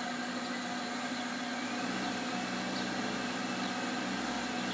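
1994 Toyota Celica's four-cylinder engine running, heard from inside the cabin: a steady hum whose low end grows stronger about two seconds in as the throttle is pressed. The engine is hesitating on the throttle rather than picking up cleanly.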